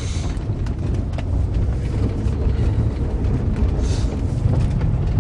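Interior noise of a 2005 Nissan Maxima under way: a steady low rumble of road and its 3.5-litre V6 engine heard from inside the cabin, with a few light clicks.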